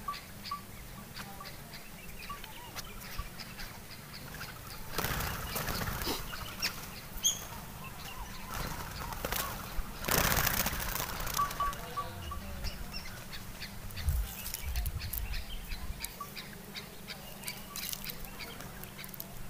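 Birds calling and chirping, with two louder rushes of noise about five and ten seconds in.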